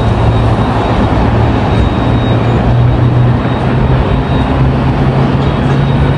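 Steady street traffic from cars passing on a multi-lane road, with a low engine hum underneath.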